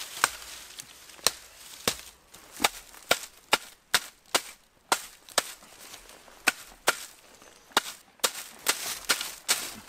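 A wooden thatcher's leggett beating the butt ends of reed thatch into place. Sharp, irregular knocks come about one to two a second, with the reeds rustling between strikes.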